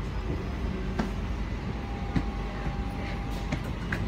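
Queensland Rail SMU 260 electric train heard from inside the carriage as it rolls along a station platform: a steady low rumble of wheels on rail with a couple of sharp clicks. A thin steady whine joins about two seconds in.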